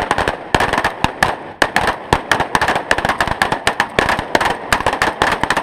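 Rapid gunfire from several rifles on a firing line: loud, sharp shots, several a second, irregular and overlapping, with no pauses.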